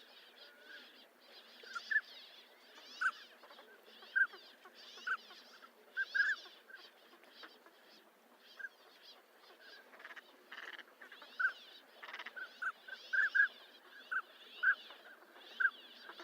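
A flock of northern pintails calling: short whistled notes repeated irregularly, about one a second, among many hoarse, rasping calls.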